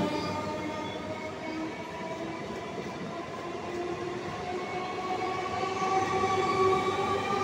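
Eastern Railway electric multiple unit (EMU) train running past, its traction motors giving a steady whine that rises slowly in pitch as it gathers speed, over the rumble of wheels on the rails.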